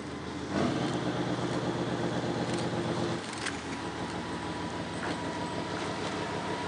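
Narrow-gauge diesel locomotive's engine working hard as it hauls the train, then easing to a lower, quieter note a little over three seconds in. A few short knocks come from the wheels or couplings.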